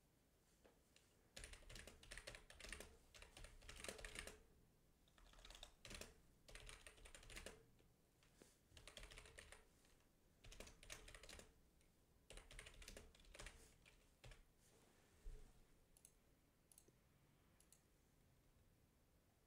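Faint computer keyboard typing in quick runs of keystrokes with short pauses between them, stopping about three-quarters of the way through, followed by a few faint clicks.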